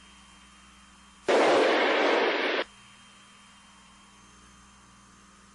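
Shuttle cockpit intercom audio: a faint steady hiss and hum, broken about a second in by a loud burst of static hiss that cuts in and out abruptly and lasts just over a second.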